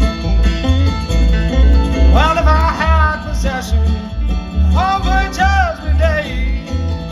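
Live country-bluegrass band playing: plucked strings over a steady, pulsing bass beat, with two drawn-out melody phrases in the middle.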